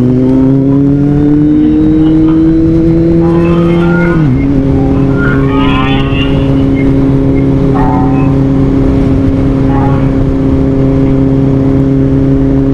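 Motorcycle engine pulling away, its pitch climbing steadily for about four seconds, then dropping suddenly at a gear change and holding a steady note while cruising.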